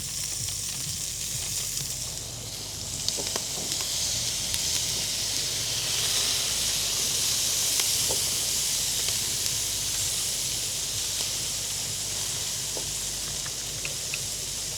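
Prawns and calamari sizzling on a hot barbecue grill: a steady sizzle with a few small crackles.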